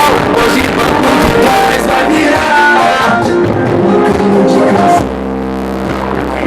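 Loud music with guitar and some singing, played over a car-audio amplifier and speakers.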